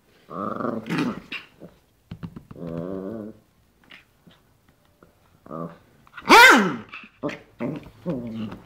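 Small dog growling in bouts while it mouths and nips at a hand in play. About six seconds in, the loudest sound is one sharp yip that falls quickly in pitch.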